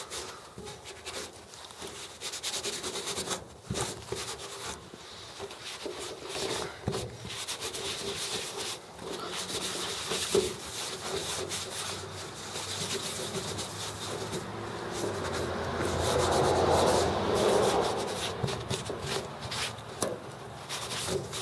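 Paper towel rubbing over an aluminum boat hull, wiping excess sealant off freshly set rivet heads in quick polishing strokes. The rubbing grows louder and fuller about two-thirds of the way through.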